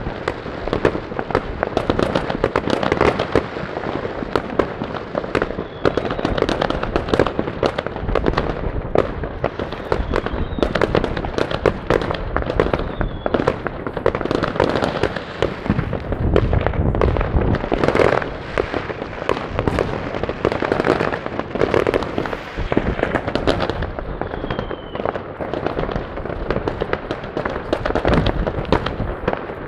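Many fireworks and firecrackers going off without a break: a dense, continuous crackle of bangs, with a few brief whistles.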